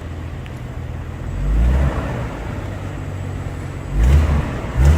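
Ford Granada straight-six engine idling steadily, with three short throttle blips that swell the engine note, about one and a half, four and nearly five seconds in. It runs quietly now that its rebuilt carburetor lets it run on its own fuel.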